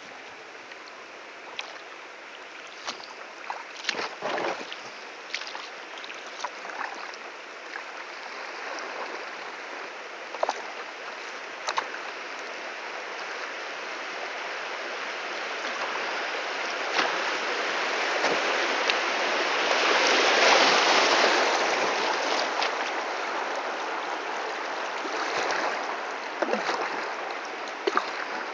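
Kayak running small river rapids: rushing, churning water that swells to its loudest about two-thirds of the way through and then eases off. Scattered sharp splashes sound through it.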